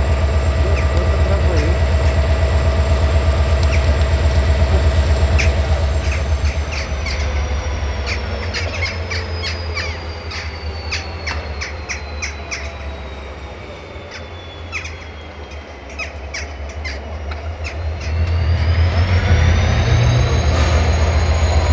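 GM (EMD-engined) class 64 diesel locomotive: a deep, pulsing engine throb with a high whine that falls slowly as the engine eases off. Short squeals and clicks come through meanwhile, then the engine picks up again about three quarters of the way in, the whine rising.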